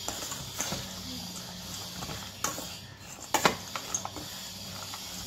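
Steel spoon stirring dried fish, raw onion and tomato in a stainless steel bowl: scraping and rustling, with sharper clinks of spoon on bowl about two and a half and three and a half seconds in, over a faint steady hum.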